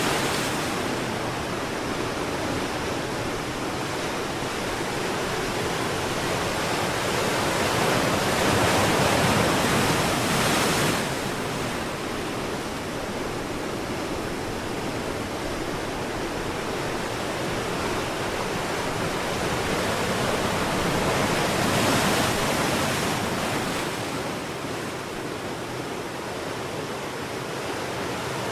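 Sea waves washing onto a shore: a continuous rushing surf, swelling louder for a few seconds about a third of the way in, then dropping off abruptly, and again about three-quarters of the way through.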